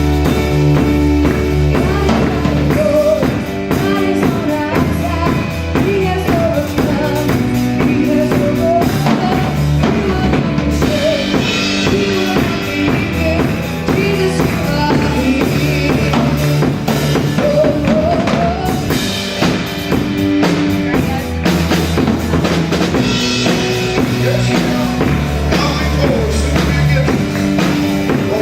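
Live gospel band playing: drum kit, bass guitar and keyboard, with held bass notes under a wavering keyboard or vocal melody.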